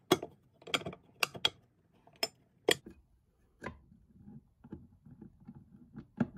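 Several sharp clicks and knocks in the first few seconds, then quieter rubbing and light taps: cast aluminium engine crankcase halves and a gear being handled and fitted by hand.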